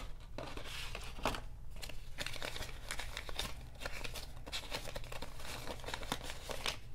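Paper banknotes and a kraft-paper envelope rustling and crinkling by hand as the bills are pulled out and leafed through: a continuous run of short, crisp rustles.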